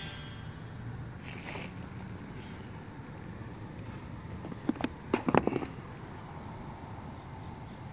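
A few short, sharp clicks and taps about halfway through as a metal card is pried out of its slot in a cardboard presentation box, over a steady outdoor background hum.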